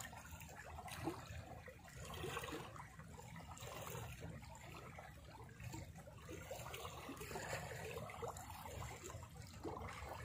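Small sea waves lapping and trickling over shoreline rocks, faint and steady.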